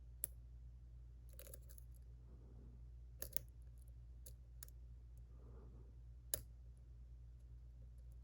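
Faint, irregular metallic clicks and ticks of lock-picking tools working the pins of a JPM Surf high-security lock, a few single clicks and one short cluster, over a steady low hum.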